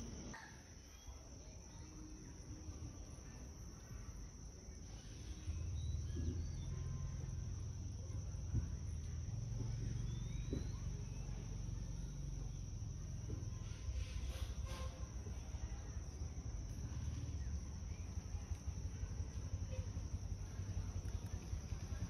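Steady, high-pitched drone of insects, one unbroken tone, with a low rumble joining about five seconds in.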